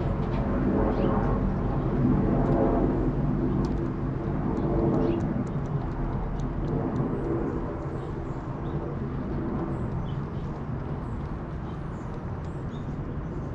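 Steady low engine hum of a motor vehicle, easing off about halfway through, with faint light ticks above it.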